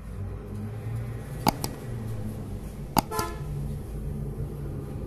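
Steady low background rumble, broken by two sharp clicks about a second and a half apart, each followed at once by a fainter second click; a short ringing tone trails the second pair.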